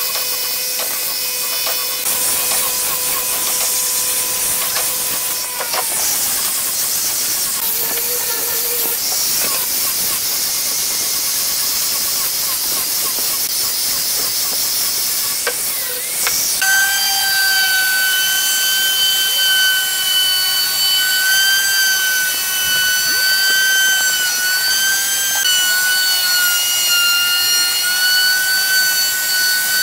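Angle grinder with a sanding pad sanding a curved wooden table leg, a steady high hiss over the motor's whine. A little past halfway it gives way to a router table's steady high motor whine as a bearing-guided bit shapes the leg's edge.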